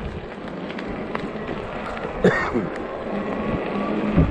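Riding noise from a 20-inch 48V fat-tyre e-bike: a steady rush of wind and tyres on pavement. A low steady hum joins past the middle, and a brief falling sound comes about two seconds in.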